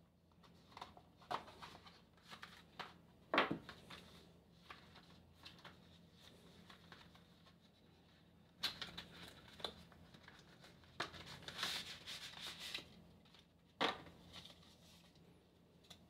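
Cardboard phone-box packaging and paper inserts handled by hand: scattered light taps and clicks, the sharpest a few seconds in, with bouts of rustling and scraping about halfway through and again a little later.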